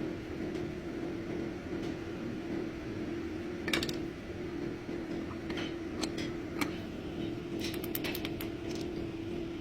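A steady mechanical hum with scattered sharp clicks and light clinks, several of them close together about eight seconds in.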